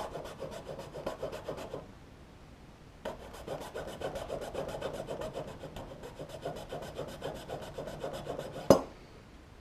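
The small file of a Leatherman multi-tool filing the end of a plastic light bar in quick, repeated short strokes. It pauses for about a second, then resumes, and ends with a sharp knock near the end.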